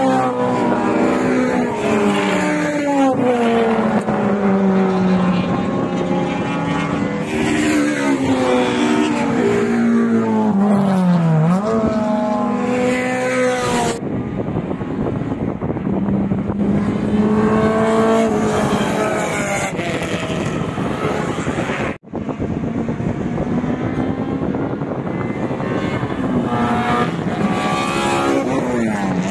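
Several racing touring cars running hard on a circuit and passing by, their engine notes climbing and falling through the gears and dropping in pitch as they go past. One sharp drop in pitch comes about a third of the way through, and the sound breaks off for a moment about three-quarters of the way in.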